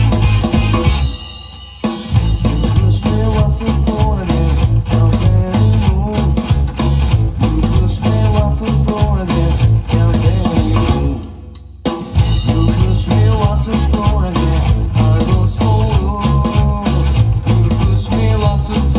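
Melodic punk rock band playing, with electric guitar, bass guitar and drum kit. The band stops short for a moment twice, about a second in and again around eleven seconds in, then comes back in.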